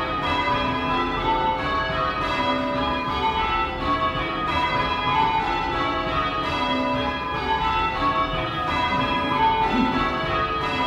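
A ring of six cast iron church bells rung in call changes: each bell strikes in turn in a steady repeating row, the tones overlapping and ringing on into one another.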